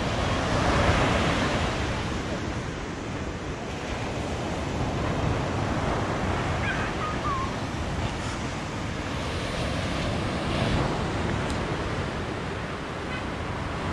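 Ocean surf breaking on a sandy beach: a steady wash of waves that swells and eases in slow surges.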